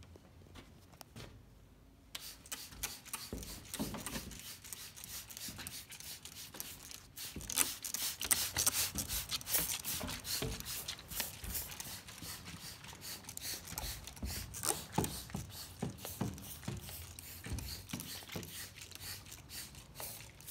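A trigger spray bottle squirting liquid over a box elder wood slab in many short hissing sprays in quick succession, thickest around the middle.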